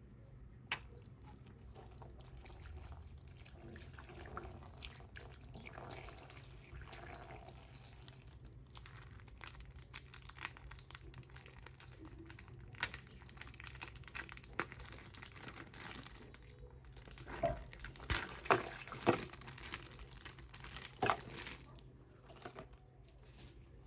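A plastic toy being handled and washed: faint running water and crinkling, with scattered small clicks and knocks that come thicker and sharper about two-thirds of the way through.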